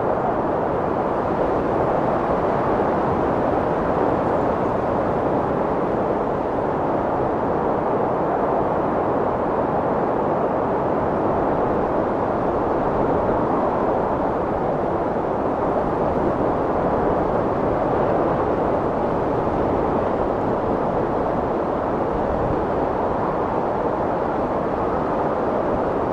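Strong wind blowing as a steady, deep rushing noise with no gusts or breaks.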